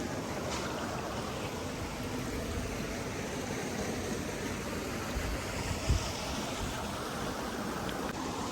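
Steady rushing outdoor noise, with a brief low thump about six seconds in.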